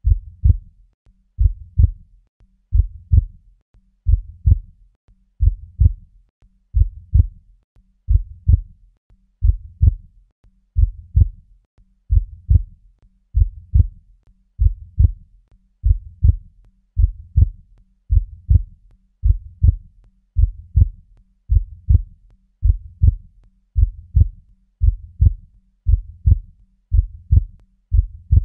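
Heartbeat backing track: deep, even double thumps, lub-dub, repeating about every second and a half.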